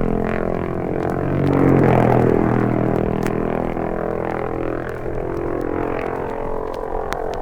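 Norton racing motorcycles at full speed on the road course, their engines a loud pitched drone that swells as one passes about two seconds in, then fades away down the hill. Old vinyl record surface clicks run through it.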